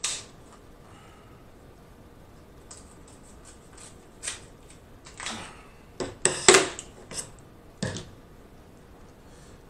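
Kitchen shears snipping and cracking through king crab leg shell: a string of separate sharp clicks and cracks, the loudest cluster a little past the middle.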